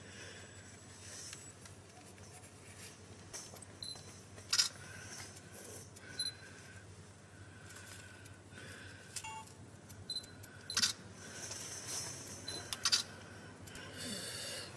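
Scattered light clicks and scrapes of a spatula spreading metal repair putty over a patched joint on a finned pipe.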